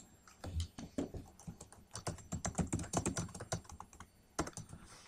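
Typing on a computer keyboard: a quick, irregular run of key clicks, a short pause near the end, then a few more keystrokes.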